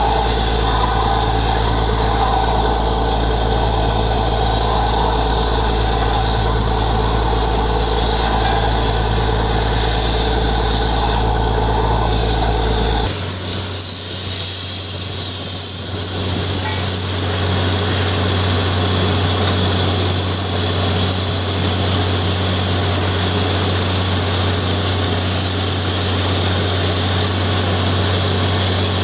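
Borewell drilling rig's heavy engine running steadily. About thirteen seconds in the sound changes abruptly, and a loud, high, steady hiss runs over the engine from then on.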